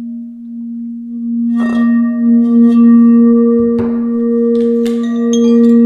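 Iridescent crystal singing bowl ringing with a steady, sustained low note and its overtone, struck again about a second and a half in and near four seconds. Near the end, short bright pings of a hand-held chime join in.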